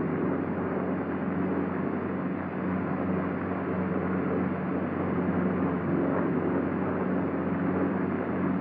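Steady drone of a P-47 Thunderbolt's Pratt & Whitney 2,000-horsepower radial engine in flight, a low even hum on an old film soundtrack with no high end.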